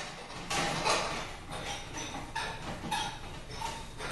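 Globe light bulbs being twisted out of the sockets of a brass vanity light bar: a series of short, irregular scraping sounds.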